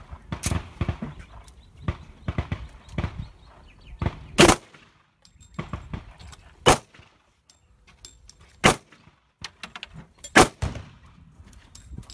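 Four revolver shots about two seconds apart, from a revolver loaded, it seems, with .357 rounds. They begin about four and a half seconds in. Before them come fainter cracks and knocks.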